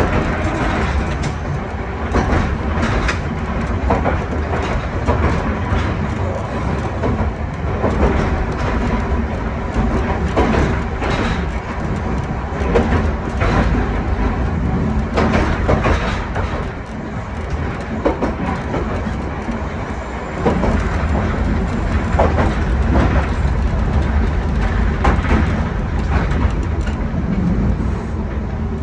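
1928 Kawasaki-built wooden tram with nose-suspended traction motors running along the track: a steady low rumble of motors and running gear, with frequent irregular clacks and knocks of the wheels over the rails. It eases a little past the middle, then runs louder again.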